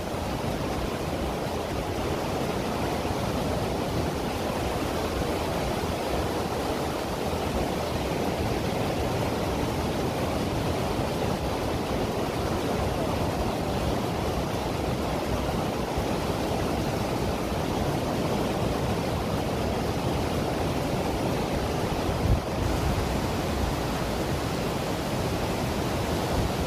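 Waterfall's falling water: a steady, even rush, with one brief thump late on.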